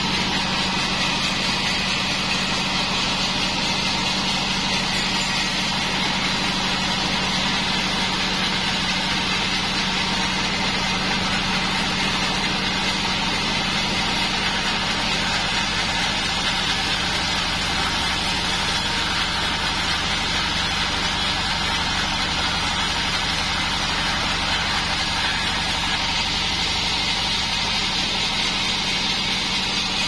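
Bandsaw mill running steadily, a constant machine drone with a low hum.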